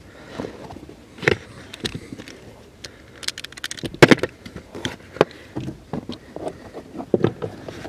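Scattered clicks and knocks as the plastic side latch clips of a steering-column rubber boot are pressed down and the boot is worked loose through the floor. A quick run of clicks comes about three seconds in, and the loudest knock comes about a second later.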